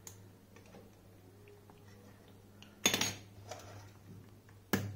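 Two sharp clacks of small hard torch parts knocking on a wooden tabletop, about three seconds in and again near the end, each with a brief ring, with faint handling noise between.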